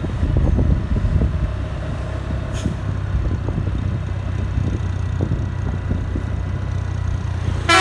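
Bus engine idling with a steady low rumble, a faint short hiss about two and a half seconds in, and a brief loud burst near the end.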